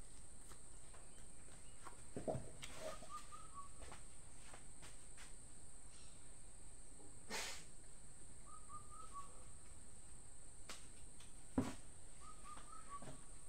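A bird gives a short call of three or four quick chirps, three times over, against a steady high hiss. There are two short knocks, one about two seconds in and a sharper one near the end.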